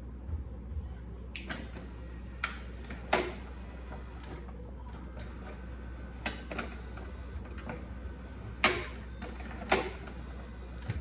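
Sharp clicks, about eight at uneven intervals, from the relays of a caravan automatic slide-step controller switching as its magnetic door switch is operated, over a steady low hum.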